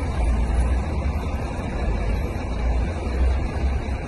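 Wind buffeting an outdoor phone microphone: a steady rushing noise over a heavy, uneven low rumble.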